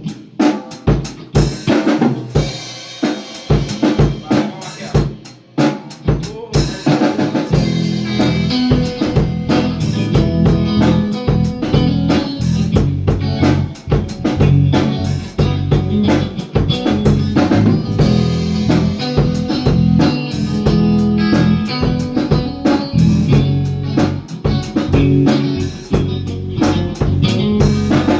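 Band playing an instrumental intro: the drum kit plays alone at first, with snare and bass drum. About seven seconds in, bass guitar and guitar join over the beat.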